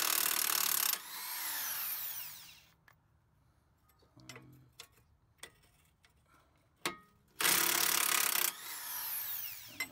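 Corded electric impact wrench loosening the nuts on the strut-to-knuckle bolts. It runs in two bursts, one stopping about a second in and another about 7.5 seconds in lasting about a second, and each winds down with a falling whine after the trigger is released. A few light metallic clicks fall in between.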